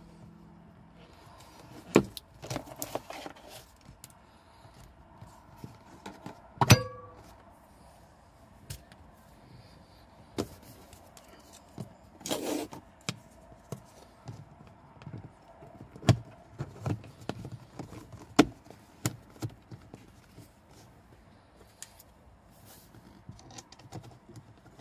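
Hands fitting a replacement car speaker into a Mercedes W124 dashboard opening and pressing the plastic dash speaker grille back on: scattered clicks, knocks and plastic rattles. A sharp knock comes about two seconds in, and a louder one with a brief metallic ring about seven seconds in.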